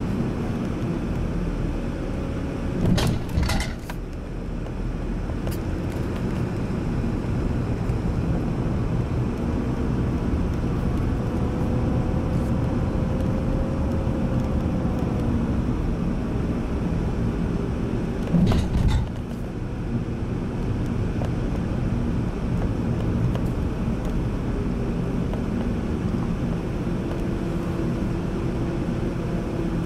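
Steady engine and tyre noise of a moving car, heard from inside the cabin, with two brief knocks, one about three seconds in and another a little past the middle.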